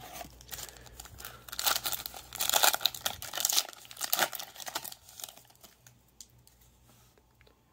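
Foil Yu-Gi-Oh! booster pack crinkling and tearing as it is ripped open by hand, in a run of crackly rustles that fades to faint handling about five seconds in.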